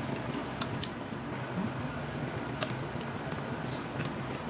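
Metal wire potato masher working boiled potatoes and cream in a stainless steel pot, with a few irregular sharp clinks as the masher strikes the pot.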